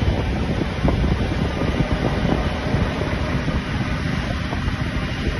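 Strong gusty wind buffeting the microphone, with a faint steady engine hum underneath.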